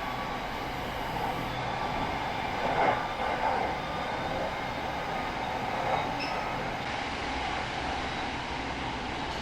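Electric commuter train of Bangkok's Red Line running on the rails, a steady running noise with a few brief louder swells about three seconds in.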